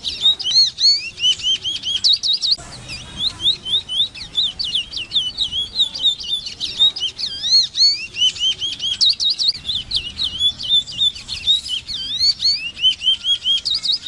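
Large-billed seed-finch singing a long, fast song of rapid sweeping whistled notes, with a brief pause about two and a half seconds in.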